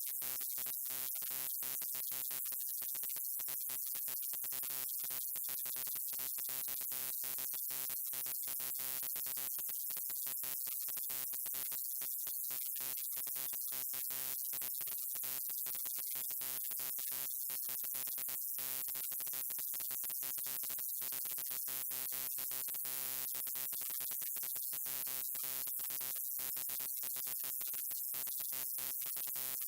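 Neon sign buzzing: a steady electrical hum-buzz with many overtones and a bright hiss above it, flickering with rapid, irregular momentary cut-outs.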